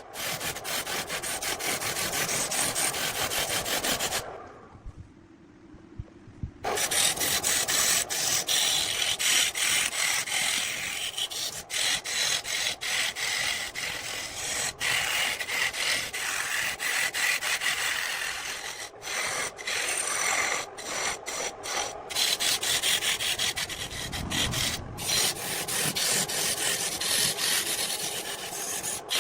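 Wood being cut on a lathe: a tool scraping against the spinning glued log-ring blank, giving a continuous rasping with a dense grainy texture. It drops to a much quieter, duller sound for about two seconds, about four seconds in.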